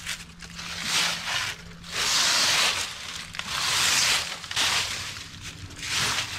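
Rustling and scuffing of clothing and gear in about five bursts, the longest a little after two seconds in, as a person shifts about and settles in a wooden tree stand.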